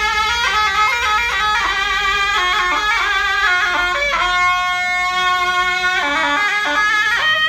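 Zurna, the Turkish double-reed shawm, playing a folk tune solo: quick, stepping, ornamented phrases with one long held note about halfway through.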